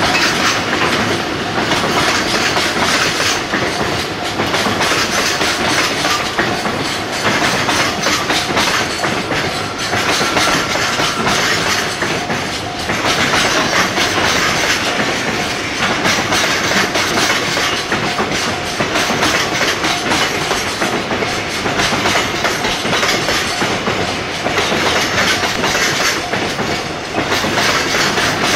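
Departing freight train's wagons rolling past, with a continuous clickety-clack of steel wheels over rail joints and points.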